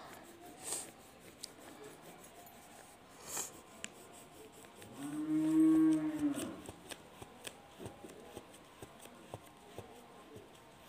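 A cow moos once, a single long low call of about two seconds a little past the middle. Around it, the soft scratching of a colour pencil shading on paper.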